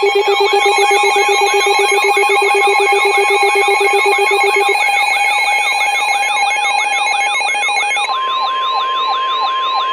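Electronic emergency alarm: a rapid sweeping siren-like yelp, about three sweeps a second, over steady buzzing tones. About eight seconds in, the steady 1050 Hz NOAA Weather Radio warning alarm tone comes in under the sweeps, signalling a new warning message.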